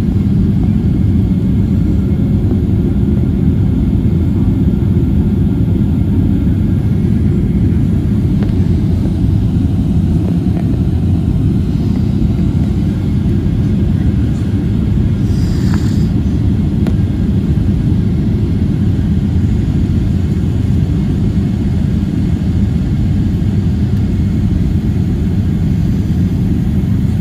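Steady low rumble of engine and airflow noise inside a Southwest Airlines Boeing 737's cabin, heard from a seat over the wing as the jet descends to land.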